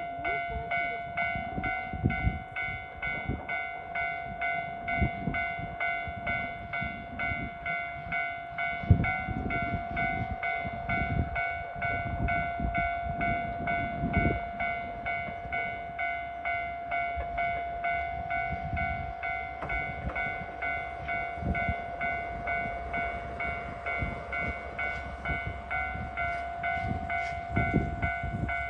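A level-crossing alarm rings in even pulses, about two a second. Under it is the low rumble of a DE15 diesel wedge snowplough locomotive rolling slowly into the station over snow-covered track, with occasional thumps.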